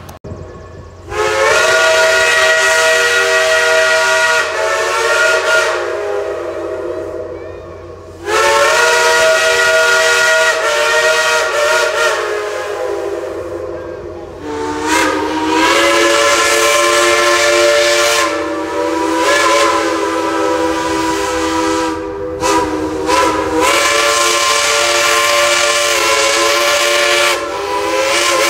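Steam whistles of passing Shay geared steam locomotives blowing a series of long blasts, about five, each several seconds long with short breaks between them. Several tones sound at once, and the pitch slides up as one blast opens partway through.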